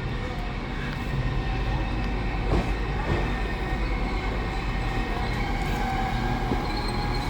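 A train running at the platform: a steady low drone with a faint held tone above it, and one sharp click about two and a half seconds in.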